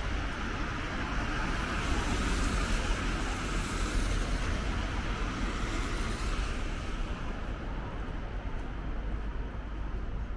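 Road traffic on a wet street: the hiss of tyres on wet tarmac swells as vehicles pass and fades away after about six seconds, over a steady low rumble.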